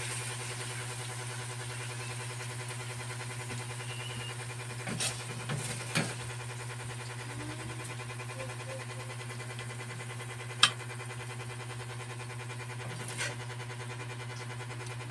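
A steady low hum, like a running motor, with a few scattered light clicks; the sharpest click comes about ten and a half seconds in.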